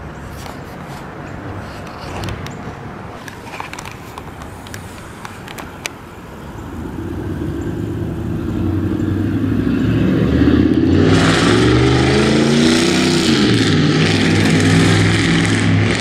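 Loud motor vehicle engine going past, building from about six seconds in and loudest over the last five seconds. Its pitch rises and then drops partway through the loud stretch.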